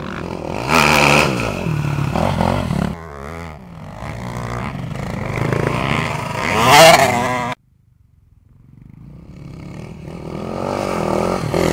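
Enduro motorcycle engine revving as the bike comes on and ploughs through a shallow water crossing close by, loudest about seven seconds in. The sound cuts off suddenly, then a second dirt bike's engine grows louder as it approaches.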